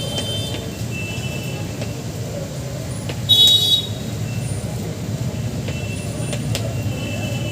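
Steady low rumble of vehicle traffic, with a short, loud, high-pitched toot about three seconds in.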